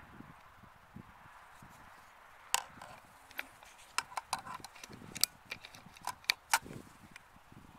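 Mrodair P-15 air rifle firing once, a sharp crack about two and a half seconds in, followed by a run of a dozen or so sharp clicks and knocks.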